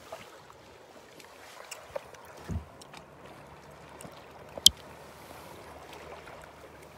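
Lake water lapping against a kayak's hull as a faint, steady wash, with scattered small knocks. There is a low thump about two and a half seconds in and a single sharp click about two-thirds of the way through.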